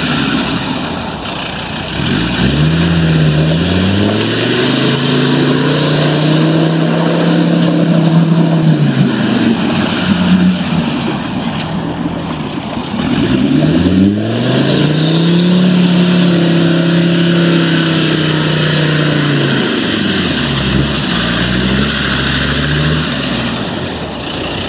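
Land Rover Discovery engine revving hard as it drives through deep muddy water. Its pitch climbs, holds high and then drops, twice, with a shorter rev near the end, while the tyres churn and splash through the mud.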